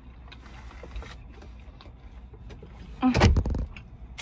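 Low steady outdoor hum coming in through open car windows. About three seconds in, a brief loud rustle and thump as something is handled close to the microphone.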